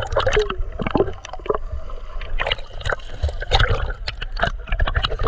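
Water splashing and sloshing against an action camera at the water's surface as a swimmer in a life jacket paddles with his hands: a run of irregular splashes over a low rumble of water on the housing.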